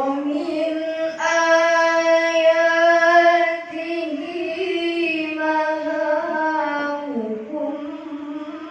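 A child's voice reciting Quran verses in a melodic chanted style, holding long notes with ornamented turns in pitch. The voice comes in at once, pauses briefly about three and a half seconds in, then carries a second phrase that dips in pitch near the end.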